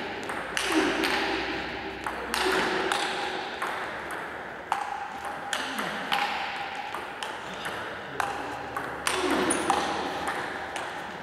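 Table tennis rally: the ball clicking sharply and quickly back and forth off the bats and table, a few hits a second at an uneven pace.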